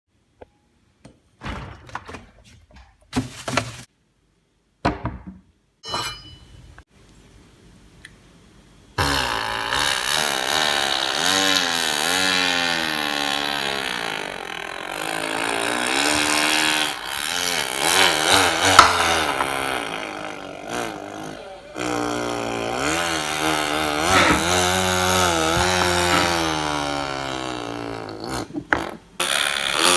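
A person imitating a chainsaw with their voice: a continuous buzzing drone that rises and falls in pitch like a revving saw, starting about nine seconds in. Before that there are only a few scattered knocks and clicks.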